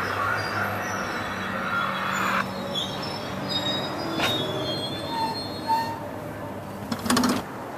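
NJ Transit Multilevel bi-level commuter coaches rolling slowly past as the train brakes, with a steady rumble, a hiss in the first couple of seconds and short high-pitched brake and wheel squeals. A brief loud burst comes near the end.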